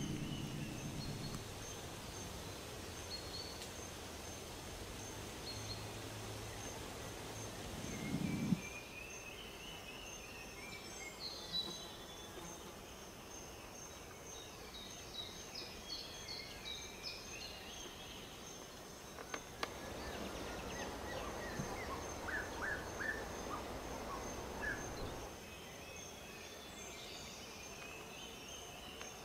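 Woodland birds singing in scattered chirps and trills, over a high, evenly pulsed call that repeats the whole time. Low rumbling noise comes and goes beneath, with a short knock about eight seconds in.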